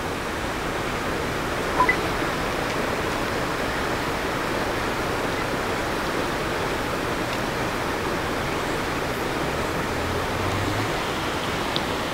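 Steady, even rushing background noise with no clear events, and one faint short click about two seconds in.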